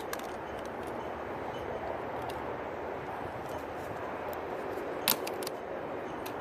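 Steady outdoor background noise, likely wind on the microphone, with a few faint ticks and one sharp click about five seconds in from plastic keycaps being handled.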